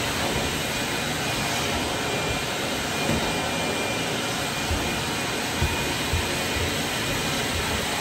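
Ridgid 10-gallon stainless-steel wet/dry shop vacuum with a 6-peak-horsepower motor running steadily as its wand and floor tool are worked over carpeted stair treads, with a few low thumps along the way.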